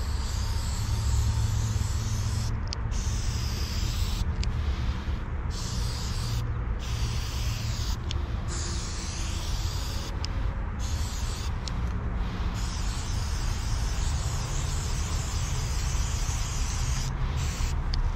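Aerosol spray paint can hissing in long passes, broken by short pauses about a dozen times, over a steady low rumble.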